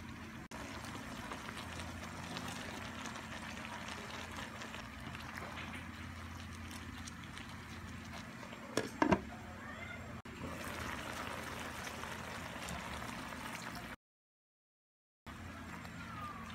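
Vegetables sautéing in a nonstick wok, a steady sizzle and bubble as they are stirred and tossed with a spatula, with one louder knock of the spatula against the pan about nine seconds in. The sound cuts out briefly about fourteen seconds in.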